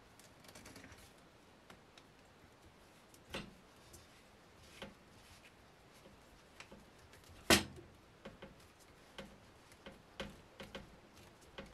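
Plastic sink drain trap being fitted and tightened by hand: scattered faint clicks and knocks of the plastic pipe pieces and slip nuts, with one sharper knock a little past the middle.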